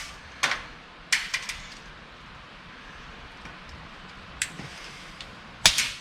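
Handling noise from work with tools and materials: a few sharp clicks and knocks, in small clusters about half a second in, around a second in, once past four seconds and near the end.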